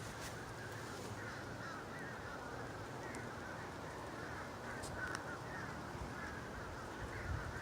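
A large flock of birds calling as it flies overhead: a steady chorus of many overlapping calls.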